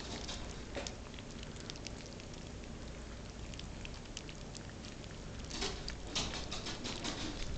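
A litter of three-week-old Shetland sheepdog puppies lapping and smacking at soft puppy mash in shared pans: a dense patter of small wet clicks. A few louder smacks come about three-quarters of the way through.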